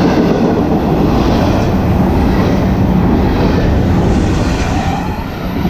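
Florida East Coast double-stack container well cars rolling past close by: a loud, steady rumble of steel wheels on rail.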